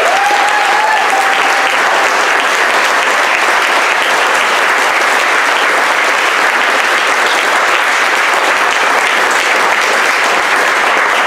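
Audience applauding steadily, the end-of-song ovation for a live performance. One voice whoops briefly at the very start.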